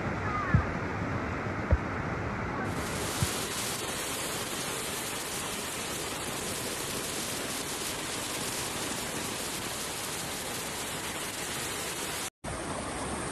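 Floodwater rushing through a street in a steady, noisy torrent. There are two sharp knocks in the first two seconds and a smaller one a second later. The sound cuts out for an instant near the end.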